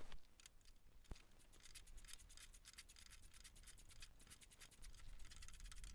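Faint, rapid ticking and rubbing from a socket wrench working a spark plug loose on a riding mower engine, barely above near silence.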